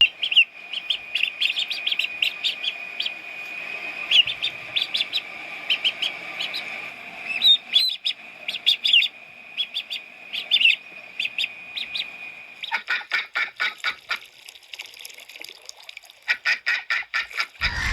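Birds calling: many short, high chirps over a steady high tone, then, about two-thirds of the way through, a fast run of short calls.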